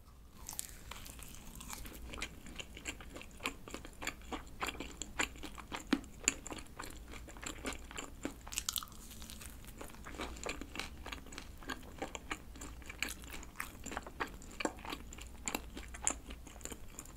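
Biting into and chewing a croquette-style fried bread with a crispy, oily crust and a chewy glutinous-rice dough: many small crisp crackles and chewing sounds throughout.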